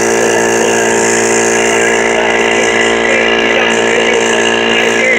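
New Harbor Freight 21-gallon oil-lubricated air compressor running steadily and loud while it pumps up its tank on its first break-in run.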